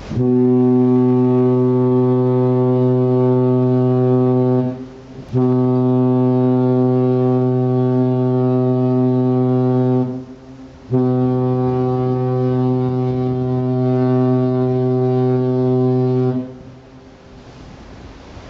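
Hurtigruten coastal ship's horn sounding three long blasts of about five seconds each, one steady deep pitch, with short gaps between them: the salute exchanged when two Hurtigruten ships meet. After the third blast, wind and sea noise remain.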